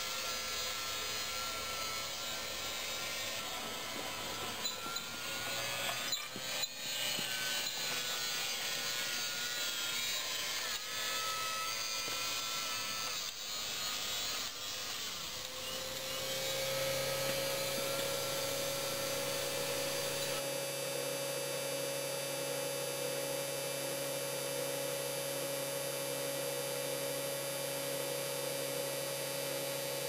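Homemade battery-electric garden tractor working over a dirt mound: a wavering electric drive whine under rattling and scraping noise, with a few knocks. About halfway through, this gives way to a steady hum of several held tones, which fades at the end.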